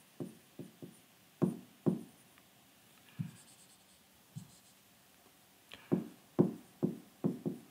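Stylus tapping and scraping on an interactive whiteboard's screen while handwriting, in short separate strokes with pauses, then a quicker run of strokes near the end.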